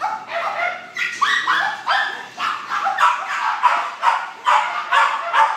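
Several kennelled dogs barking steadily, about two or three barks a second, the barks overlapping at different pitches with some higher yips among them.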